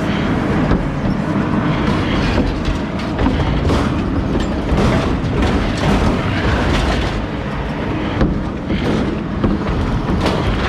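Steady heavy machinery rumble with continual clattering and knocking of metal.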